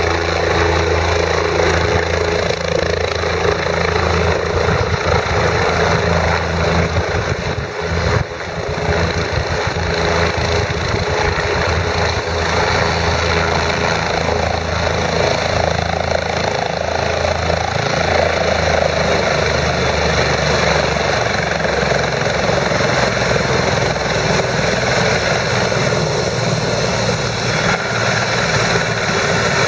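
Bell 407GX helicopter running steadily, its Allison Model 250 turbine giving a steady high whine over the low drone of the rotor.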